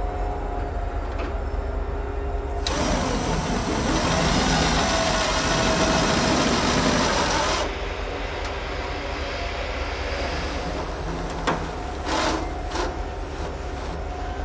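Cordless drill driving a #8 stainless steel sheet-metal screw through aluminum mesh into a truck fender's wheel arch: one steady run of about five seconds with a high whine, then a few short trigger blips near the end to seat the screw.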